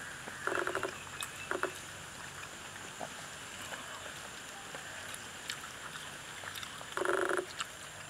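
Steady high insect drone, broken twice by a short hummed, voice-like sound lasting about half a second: once near the start and again about seven seconds in.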